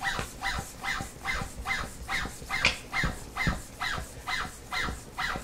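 Multi-pump pneumatic air gun being hand-pumped to charge it, stroke after stroke at about two and a half strokes a second. Each stroke gives a short squeak and a low thump.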